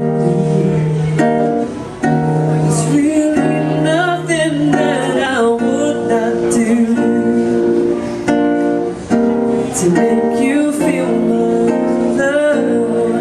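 A woman singing while she plays chords on an acoustic guitar, a live solo vocal-and-guitar performance.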